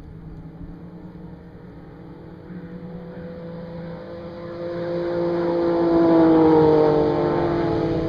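A fast vehicle's engine approaching and passing by. It grows louder to a peak about six or seven seconds in, and its pitch drops as it goes past.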